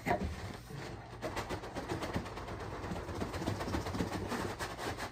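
Cardboard boxes rubbing and scraping as an inner box is slid out of its outer cardboard shipping box: a fast run of small scratches and clicks that thickens about a second in.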